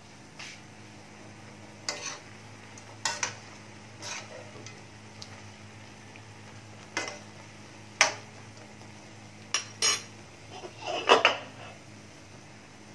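Metal utensil clanking and scraping against an aluminium wok, about ten short separate knocks, the loudest near the end.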